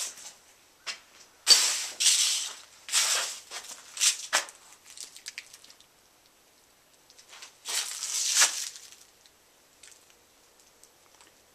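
Irregular crunching and rustling in short bursts: a busy run for a few seconds, then another cluster about eight seconds in.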